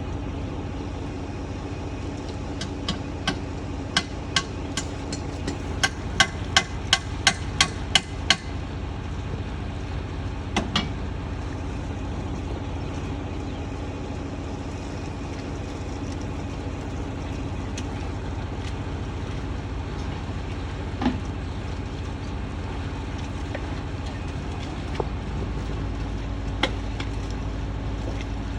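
A motor running steadily with a low hum, with a run of about a dozen sharp clicks a few seconds in that quicken to about three a second, then a few single clicks later on.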